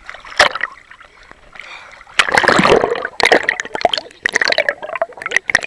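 Water splashing and gurgling right against a camera held at the water's surface, in loud irregular bursts from about two seconds in.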